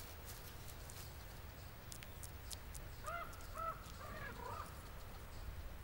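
Faint outdoor ambience with a steady low wind rumble. About three seconds in come five or six short, arching animal calls in quick succession.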